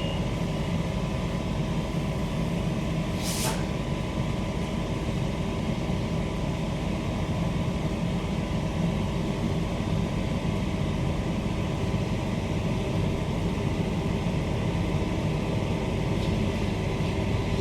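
Steady running noise inside a Queensland Rail SMU 260 series electric train's trailer car as it travels: a low rumble of wheels on rail with faint steady hum tones. A brief hiss about three seconds in.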